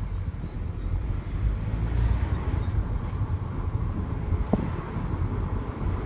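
Vauxhall Astra J 1.4T making a steady low rumbling noise of unknown cause, which the owner calls weird, with a brief sharp sound about four and a half seconds in.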